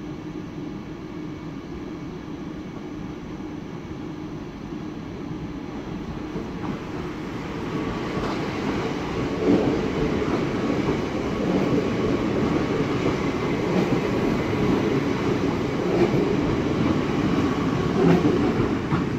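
Red regional electric train rolling past along the platform, its low rumble growing louder about seven seconds in, with a clack from the wheels every couple of seconds as they cross rail joints.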